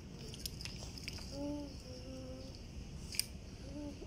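A toddler whimpering and sobbing in short, wavering cries, with a few faint sharp clicks; the loudest is a single click about three seconds in.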